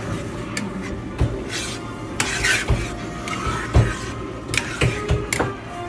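A metal spoon stirs a thick sauce in a metal frying pan, making irregular clicks and scrapes against the pan, with a few low knocks.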